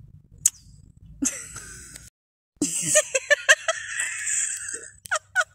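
Breathy, wheezing laughter in quick gasps, broken by a brief dropout about two seconds in, ending with a couple of short voiced 'ha' bursts.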